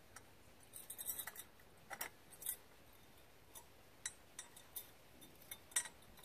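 Scattered light metallic clicks and clinks of a Hodge telescoping stabilizer bar on a Kubota BX three-point hitch being worked by hand and latched into place. The loudest click comes near the end.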